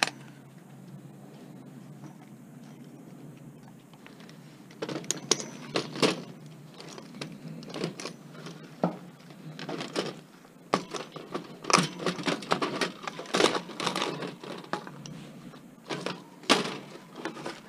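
Irregular clicks, knocks and rattles of metal and plastic computer parts being handled and pried loose while a desktop computer is taken apart by hand, starting about five seconds in and continuing to the end.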